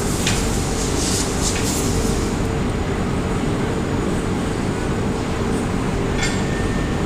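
Steady low machine hum with a hiss over it, the kind of running noise a fan or air conditioner gives, broken by a few short faint clicks.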